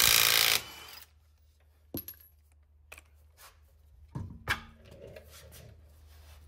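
Cordless impact wrench hammering on a lug nut, stopping about half a second in. Then a few small metallic clicks, and two knocks around four seconds in as the wheel is pulled off the hub.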